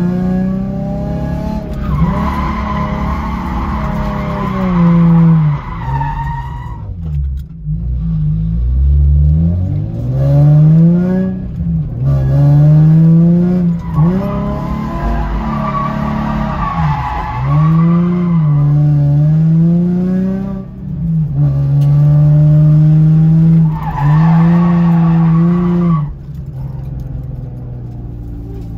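Nissan 350Z's 3.5-litre V6 heard from inside the cabin while drifting. The engine climbs in pitch, holds high for a second or two and drops again, over and over, with tyres squealing during the high-rev slides.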